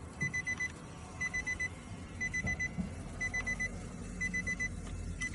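Electronic alarm beeping: quick high beeps in groups of four, one group about every second.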